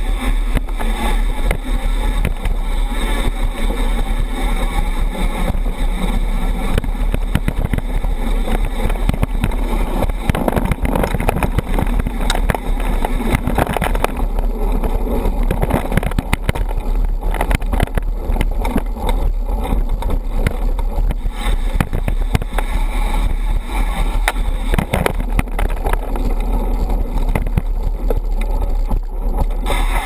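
Wind rush and low rumble on a handlebar-mounted GoPro as a mountain bike rolls fast over a dirt trail, with constant small rattles and knocks from the bike over rough ground.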